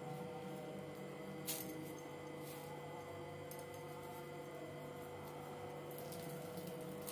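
Quiet steady electrical hum over room tone, with a faint tick about a second and a half in.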